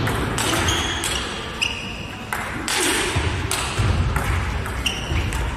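Table tennis rally: the ball clicking off the rackets and bouncing on the table about every half second, with short high squeaks of shoes on the court floor.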